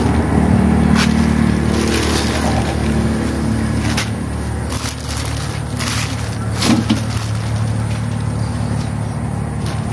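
A steady low motor hum runs throughout, with a few short crinkles of a plastic bag as live eels are handled inside it.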